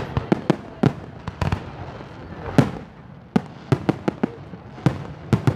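Aerial firework shells bursting overhead: a rapid, irregular string of sharp bangs, some coming in quick runs of three or four.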